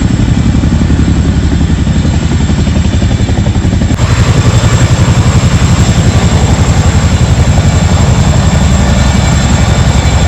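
Helicopter rotor chopping loudly with a fast, even beat as it flies by. It gets louder and brighter about four seconds in.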